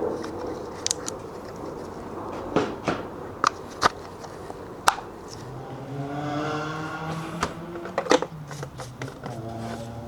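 Scattered clicks and knocks of tools being handled on a car, with a steady machine hum starting about five seconds in and fading a few seconds later.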